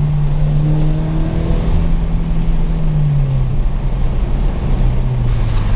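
Scion FR-S / Toyota GT86 flat-four running loudly through a newly fitted Perrin aftermarket exhaust. Its note holds steady, then eases down in pitch as the revs fall after about three seconds.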